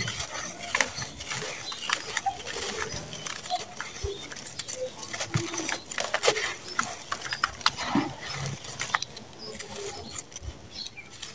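Dry, gritty sand-cement clumps crushed and crumbled by hand, with crumbs and grit falling into a plastic bowl. It is a dense, irregular run of short crunches and crackles over a gritty hiss.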